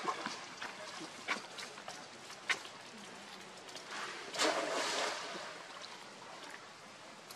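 Water sloshing and splashing around a swimming macaque carrying a baby, with a few sharp splashes and a louder burst of splashing about four and a half seconds in, easing off near the end.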